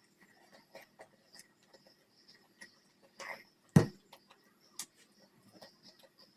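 Close-miked eating sounds: small irregular wet clicks of chewing and mouth sounds, with a brief louder noisy burst about three seconds in and one sharp knock just before four seconds, the loudest sound.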